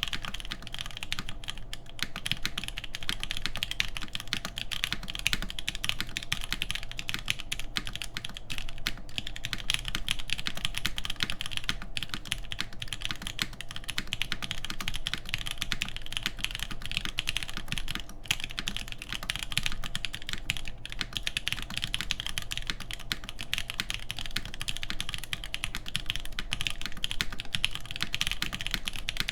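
Continuous fast typing on a Perry IU TKL custom mechanical keyboard: dense, steady key clacks from 43studio Popu switches lubed with 205g0, with 65 g springs, on a full aluminium plate under GMK keycaps.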